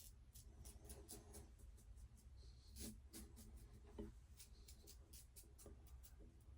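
Faint, quick scratchy strokes of an Ikon X3 slant safety razor scraping through lathered stubble, a run of short scrapes one after another.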